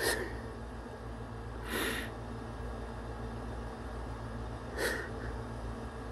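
Three short, sharp sniffs through the nose: one at the start, one about two seconds in and one about five seconds in, over a low steady hum.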